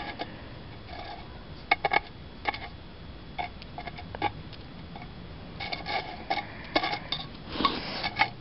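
Scattered light clicks and taps, in small clusters with a brief metallic ring, from a chopstick knocking against a metal peanut can as it pokes among the dead scorpions inside. The densest cluster comes near the end.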